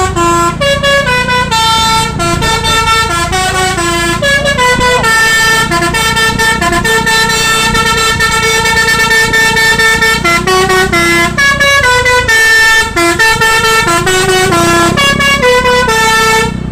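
A bus's Basuri "telolet" multi-tone horn playing a quick tune of stepped notes, with one long held note of about five seconds in the middle, over the low rumble of the bus engine. The tune cuts off abruptly at the end.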